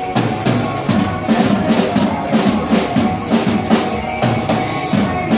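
A drum kit played in a steady beat along with a pop song's backing track: bass drum, snare and cymbal hits repeating evenly over the music.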